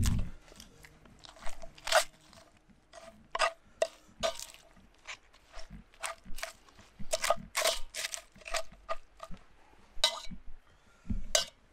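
Irregular crunches of crispy, overdone tortilla chips as nachos are picked out of a cast iron Dutch oven by hand and chewed, with a dull knock near the end.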